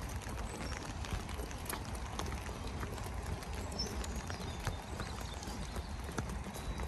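Steady rain hiss with footsteps on wet ground, about two steps a second, and sharper taps among them.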